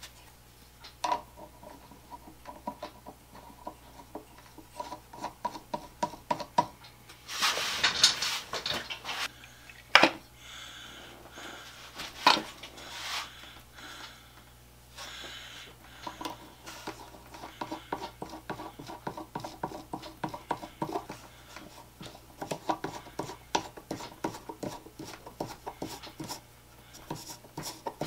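A three-jaw chuck being fitted to a Dremel rotary tool by hand: many light metal clicks, ticks and scraping as the chuck is spun onto the shaft and its jaws are worked. A longer rustling scrape comes about a third of the way in, followed by a couple of sharper clicks.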